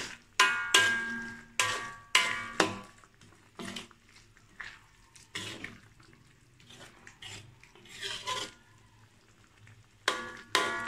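A metal spoon scraping and clanking against a metal wok as it stirs a thick sambal of soya nuggets and potatoes, each knock ringing briefly. There is a run of clanks in the first three seconds, softer stirring through the middle, and two more clanks near the end.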